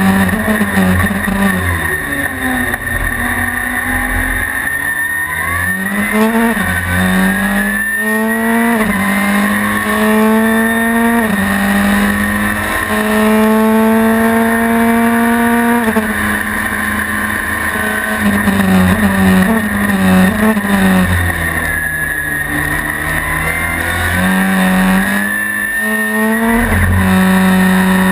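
Honda Civic TCR race car's turbocharged four-cylinder engine heard from inside the cockpit under racing load. It climbs through several quick upshifts and holds high revs, then falls in pitch as it brakes and downshifts for a corner, and climbs through the gears again near the end. A steady high whine runs underneath.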